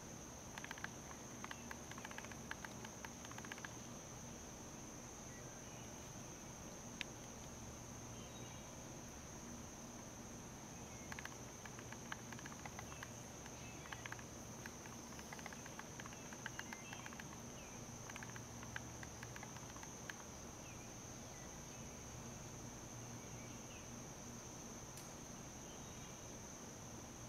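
Faint, steady insect chorus: one continuous high-pitched trill with no break, over scattered faint clicks and ticks.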